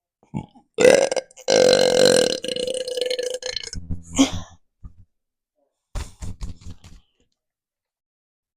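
A person burping: a short loud burp, then a long drawn-out burp held on a steady pitch for about two seconds. About six seconds in there is a brief crackling sound.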